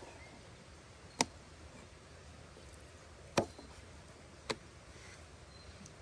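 Three sharp knocks about a second apart, the middle one the loudest, over a faint steady background hiss.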